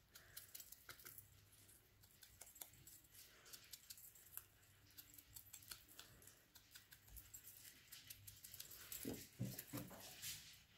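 Near silence: faint light clicks and rustles of hands handling a small ink dauber and a paper tag, with a few slightly louder soft sounds near the end.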